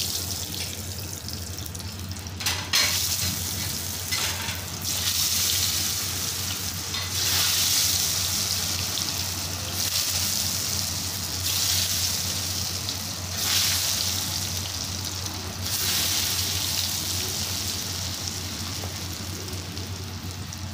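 Besan-coated potato fries deep-frying in hot oil in a wok: the sizzle builds up a few seconds in as the batch goes into the oil, then carries on steadily, swelling and easing in waves.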